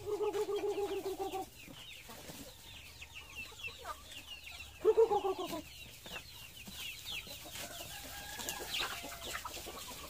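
A flock of chickens and chicks clucking and peeping, with many short high peeps throughout and two louder rapid trilled calls, one at the start and one about five seconds in.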